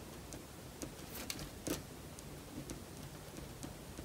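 Faint ticks and scratches of a pen drawing on paper, with a few louder strokes a little over a second in.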